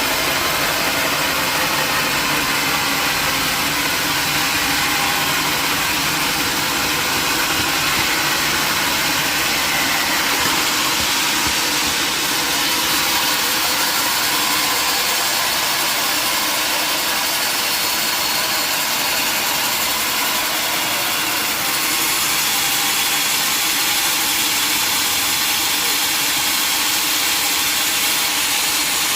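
Sawmill machinery running steadily, a constant loud mechanical noise with no pauses.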